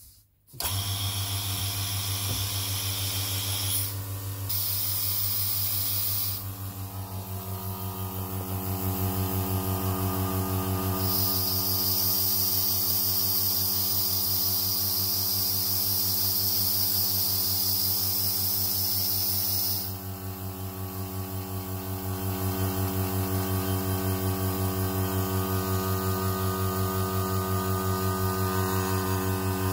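Electric vacuum pump switched on about half a second in and running steadily with a low hum, drawing the air out of a vacuum chamber so that air is pulled from wood blanks soaking in stabilising resin. A hiss comes and goes twice over the hum.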